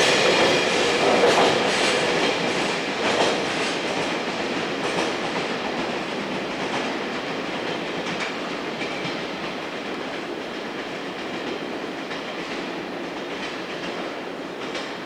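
Freight train wagons rolling through a station, wheels clicking over rail joints, the rumble slowly fading as the train draws away.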